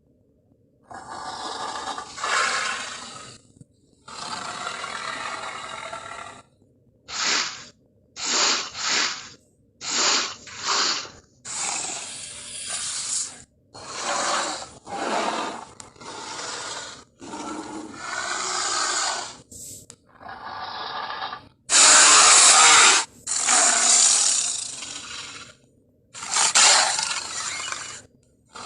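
A string of gorilla sound effects: about fifteen separate rough, breathy grunts, huffs and roars, some short and some drawn out for two or three seconds, with brief pauses between them. The loudest roar comes about two thirds of the way through.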